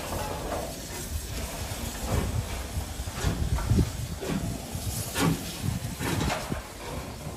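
BR Standard Class 9F steam locomotive 92134 moving off slowly: steam hiss with slow exhaust chuffs, roughly one or two a second.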